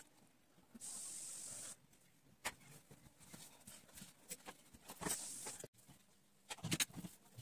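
Fine-tip pen scratching across paper in two strokes of about a second each, with scattered light taps and knocks from the pen and hand against the drawing sheet.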